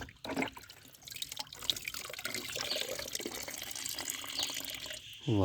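Water running and splashing from a small toy water pump onto a toy motorbike as it is washed, a steady trickling hiss with small drips and crackles. A voice says 'wow' right at the end.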